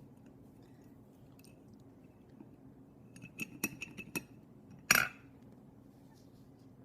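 Small metal parts of a marble cheese board's wire cutter clinking as they are jiggled loose: a run of light, ringing clinks, then one sharp, louder clack about five seconds in.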